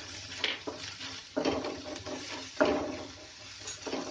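Wooden spatula stirring and scraping a thick onion-capsicum masala round a non-stick kadhai, about four strokes, with a light sizzle of the masala frying in butter.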